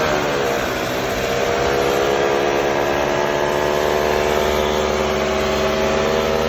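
Transmission whine from damaged needle bearings inside the gearbox gears: a steady, pitched mechanical drone that rises slightly in pitch in the first second, over a rushing noise.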